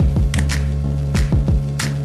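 Hip hop backing track without vocals: a steady deep bass line under booming kicks that drop in pitch and sharp percussive hits.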